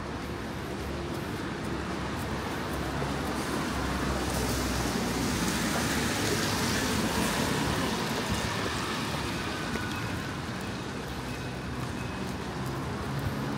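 Road traffic on a rain-soaked street: a steady hiss of tyres on the wet road, swelling as a vehicle passes about halfway through.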